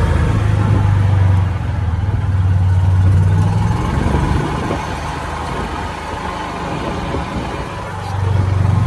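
Golf cart running as it drives, a steady low motor drone that eases off for a few seconds in the middle and picks back up near the end.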